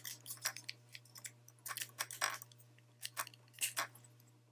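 Small plastic toy pieces clicking and scraping in the hands: an accessory being pushed onto the back of a vinyl Transformers figure, in irregular bursts of clicks. A steady low hum runs underneath.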